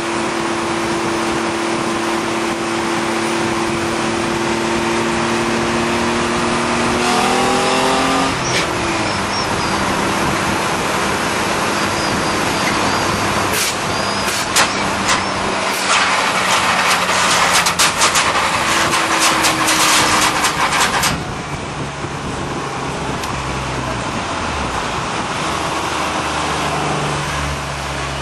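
Lowered mini truck running on the road, its engine revving, with a long stretch of harsh scraping from its body dragging on the pavement that stops suddenly a little past two-thirds of the way in.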